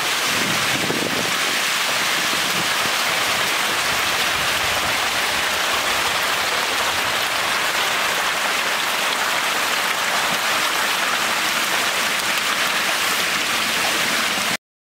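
Hundreds of baby magur catfish splashing and churning at the surface of shallow water as feed is scattered among them, a steady rain-like hiss of the feeding rush that cuts off suddenly near the end.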